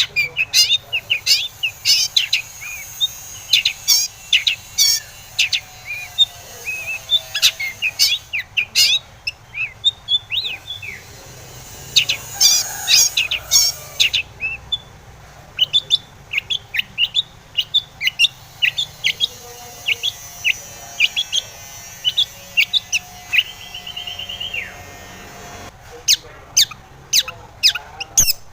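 Long-tailed shrike singing a rapid, varied song of sharp chirps and harsh scratchy notes, with a short buzzy trill past the middle.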